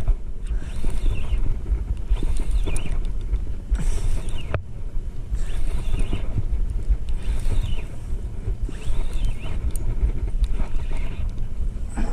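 Wind buffeting the microphone as the handle of a spinning reel is cranked to wind in line, with a soft whir coming back about once a second; a single sharp click about four and a half seconds in.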